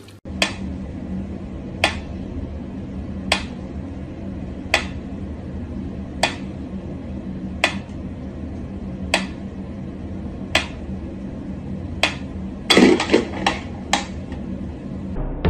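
Mechanical pyramid metronome ticking slowly and evenly, about one sharp tick every one and a half seconds, over a low steady hum. Near the end comes a brief clatter of louder knocks.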